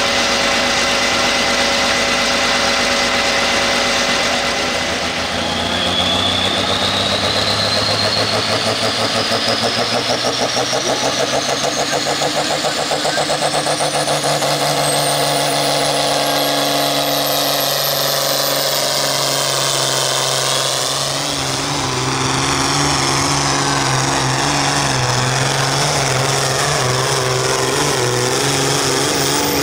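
Pulling tractor's engine running hard and loud as it drags the weight sled down the track. A high whine rises steadily in pitch from about five seconds in until about twenty seconds.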